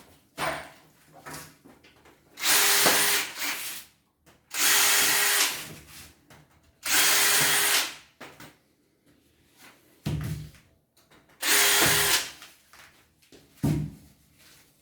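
Electric drill running in four short bursts of about a second each, with a steady motor whine, as used in fitting a table. A couple of short wooden knocks fall between the later bursts.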